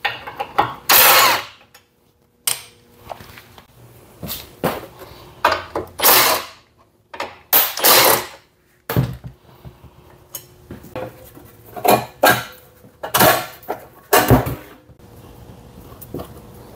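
Cordless impact driver running in about a dozen short bursts, each a second or less, spinning out the bolts of an exhaust guard.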